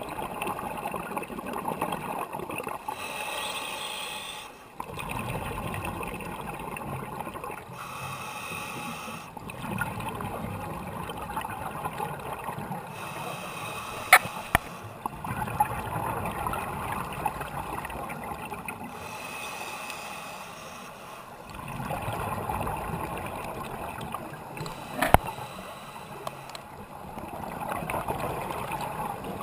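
Scuba diver's regulator breathing underwater: a hiss on each inhale alternating with a rumbling rush of exhaled bubbles, every few seconds. Two sharp clicks, about halfway through and near the end.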